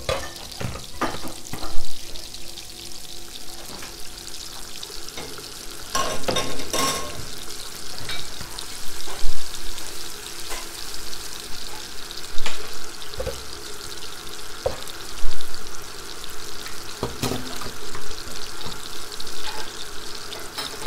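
Oil sizzling steadily in a frying pan, with scattered knocks and clatter of utensils against pots and pans.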